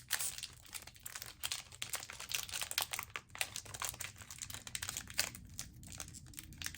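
Foil-lined Pokémon booster pack wrapper crinkling as it is pulled open by hand, with dense irregular crackles. The pack is hard to get open.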